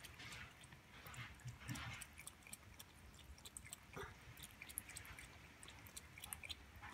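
Cat lapping cooking water from a pot with its tongue: a run of faint, quick, wet ticks.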